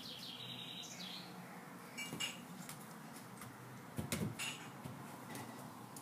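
Football being kicked and juggled: dull ball touches on foot about two seconds in and a quick cluster of them around four seconds in. Birds chirp in the background.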